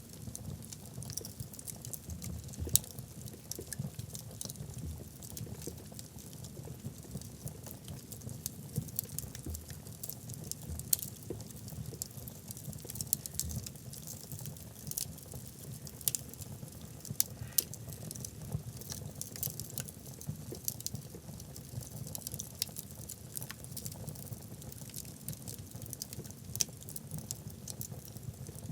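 Burning wood logs in a fireplace crackling: a dense, irregular stream of small snaps and pops over a low, steady rumble of flame. A few sharper pops stand out, one about three seconds in and others around the middle.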